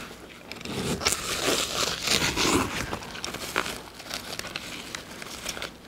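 Clear plastic protective wrap crinkling and rustling as it is cut with scissors and pulled off a new handbag, with a few sharp clicks.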